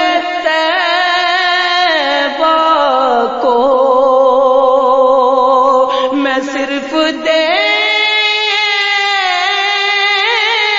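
Wordless melismatic singing of an Urdu naat: long held notes that waver in pitch, with ornamental glides and steps between them.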